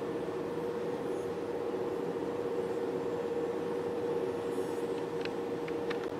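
Steady electrical hum of a multifunction facial beauty machine running during an ultrasonic treatment, one held mid-pitched tone over a soft hiss, with a few faint ticks near the end.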